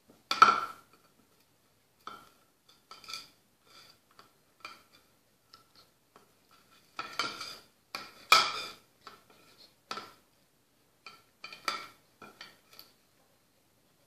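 A dog brush being batted, mouthed and pushed about by a puppy, clattering and scraping on a tile floor in irregular knocks, the loudest about half a second in and a cluster around seven to eight seconds.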